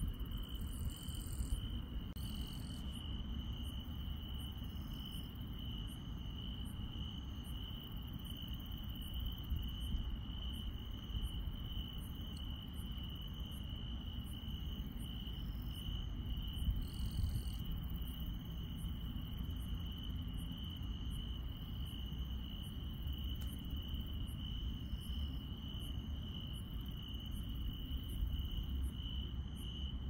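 Crickets and other night grass insects chirping: a steady pulsing trill at one pitch, with a second insect giving regular high ticks, over a low background rumble.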